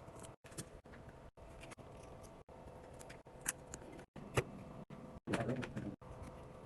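Small repair tools clicking and tapping against a Samsung phone's parts during a screen replacement. A few sharp clicks come in the middle and a short rustle near the end, and the sound keeps cutting out briefly.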